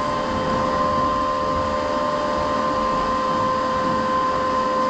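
Steady running of a small electric motor with a fan, an even hiss with a constant whine.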